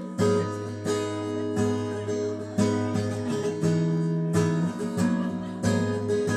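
Acoustic guitar strumming a chord progression, each strum struck sharply and left to ring, as the introduction to a song played live.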